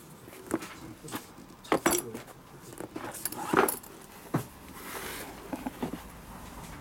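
A Toolstar fabric tool bag being handled and turned over: fabric rustling with irregular light clinks and knocks, the sharpest about two and three and a half seconds in.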